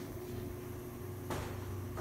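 Steady low hum in a small tiled room, with one sharp click about a second and a half in.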